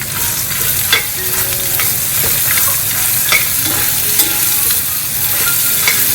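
Chopped small onions sizzling as they fry in hot sesame oil, stirred in the pan, with a spatula clicking against the pan every second or so.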